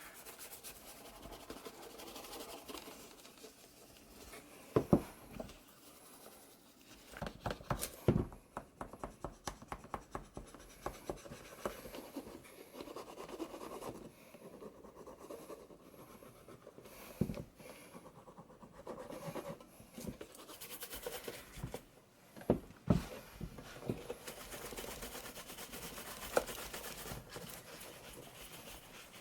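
Cloth and brush rubbing and scratching on shoe leather during a hand shoe shine, with fine clicking and a few sharp knocks.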